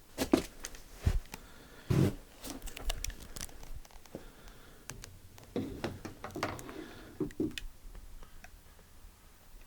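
Irregular knocks, scuffs and rustles of a person moving about a small room and handling things, with a few sharper knocks about two seconds in and again around six to seven seconds in.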